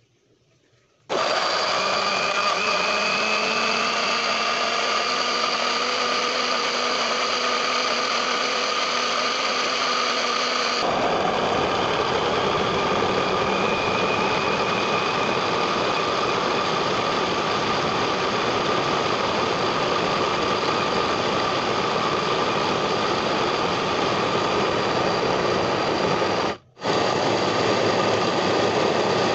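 Miyako countertop blender motor running steadily at full speed, chopping whole red chillies into a paste. It starts about a second in, turns rougher and noisier about eleven seconds in, and breaks off for a moment near the end before running on.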